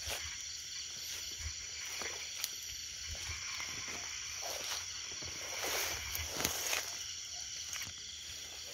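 Night insects chirring in a steady high-pitched chorus, with irregular rustling of leaves and brush as someone walks through dense undergrowth.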